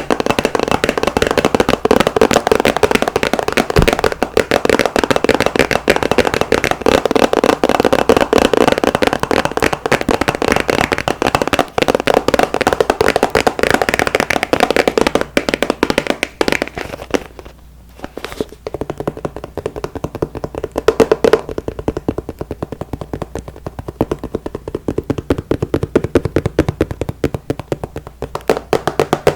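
Rapid, dense tapping and scratching close to the microphone, ASMR trigger sounds. It breaks off briefly about two thirds of the way through, then resumes sparser.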